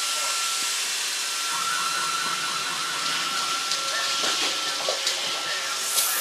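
Robot vacuum cleaner running: a steady whirring hiss with a thin steady high whine, and a few light knocks in the second half.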